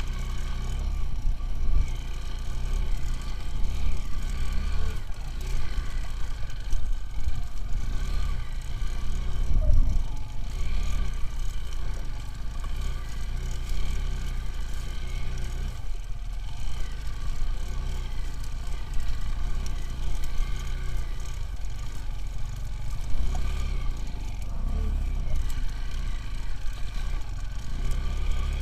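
Motorcycle engine running under changing throttle, its note rising and falling over a heavy low rumble.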